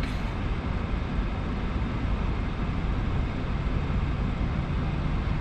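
Steady low rumble of vehicle noise heard inside the cabin of a stopped car.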